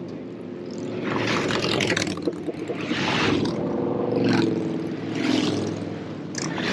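A line of motorcycles passing one after another, the engine and road noise of each bike swelling and fading, about one a second.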